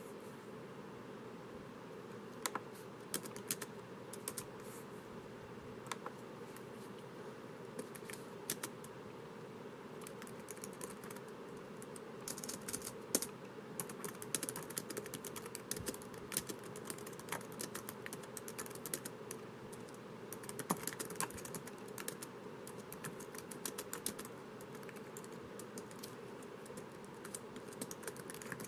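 Typing on a laptop keyboard: quick irregular key clicks in runs, sparse at first and denser from about a third of the way in, over a faint steady hiss.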